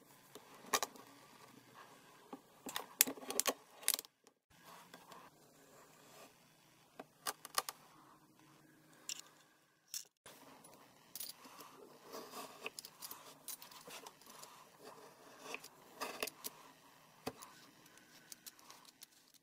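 Close-up handling of kinetic sand: a metal spoon scraping and clicking against a glass beaker of sand balls, then the sand being pressed with a glass and cut, giving crisp crumbling and scraping crackles in irregular bursts. The sounds break off twice briefly, about four and ten seconds in.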